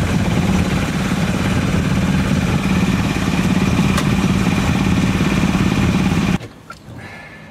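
A boat's engine running steadily at a constant pace, then cutting off abruptly about six seconds in.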